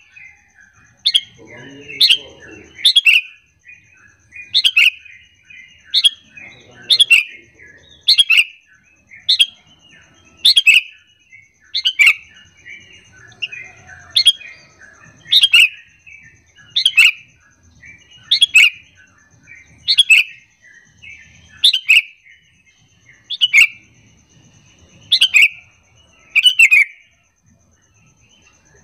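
Sooty-headed bulbul (kutilang) calling: a lure call of sharp, loud notes repeated about every one to two seconds, with softer chattering between them.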